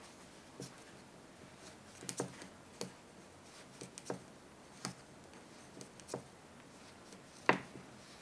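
Wooden knitting needles clicking and tapping together as stitches are knit: about a dozen soft, irregular clicks, the loudest near the end.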